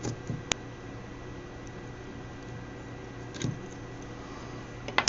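A few short, sharp clicks and taps, scattered and not in a rhythm, over a steady low background hum.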